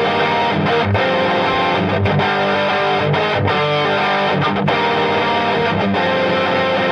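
Electric guitar played through the EGO TM2's overdriven OD100 Lead sound: a distorted, sustaining lead tone playing a continuous run of notes at a steady level, with sharp pick attacks throughout.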